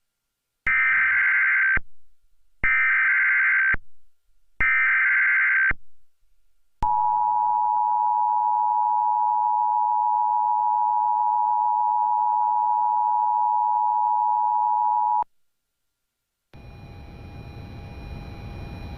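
Emergency Alert System tornado warning: three short bursts of SAME digital header data about a second apart, then the two-tone EAS attention signal held steady for about eight seconds. After a short gap a faint hiss comes in near the end, ahead of the voice message.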